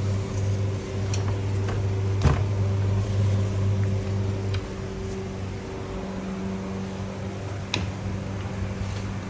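Steady mechanical hum, its low tone giving way to a higher one about halfway through, with a few sharp clicks, one about two seconds in and one near the end.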